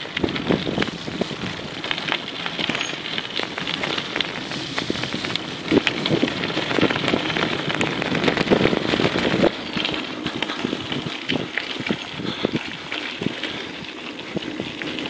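Mountain bike rolling fast down a rough dirt and gravel trail: tyres crunching over loose stones, with many small clicks and rattles from the bike. It is loudest for a few seconds in the middle and drops back suddenly.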